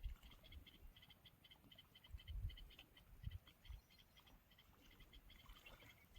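Faint, rapid chirping from small calling creatures at the water's edge, short chirps repeating evenly several times a second, with a few soft low thumps.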